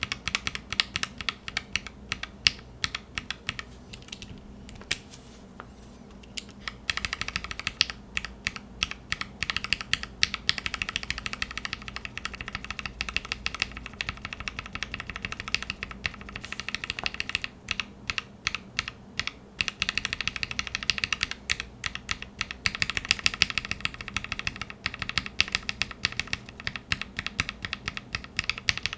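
Typing on a mechanical keyboard with linear key switches: a steady, fast clatter of keystrokes, thinning out briefly about four seconds in before picking up again.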